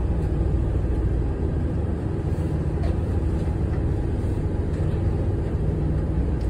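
A tour boat's engine running, a steady low hum.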